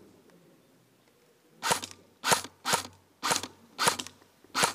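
Airsoft gun firing single shots: six sharp cracks starting nearly two seconds in, about half a second apart.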